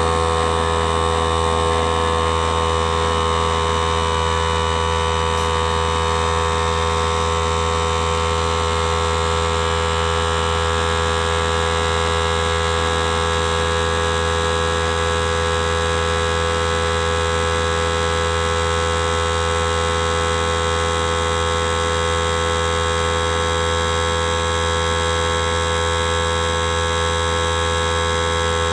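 Air compressor running steadily with a loud, even motor hum, supplying air to inflate a car tire.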